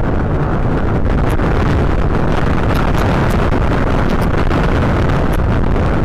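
Strong wind buffeting a nest camera's microphone: a loud, steady low rush and rumble.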